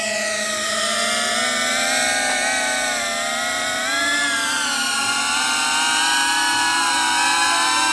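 FPV quadcopter's electric motors and propellers whining steadily, the pitch dipping and rising as the throttle changes.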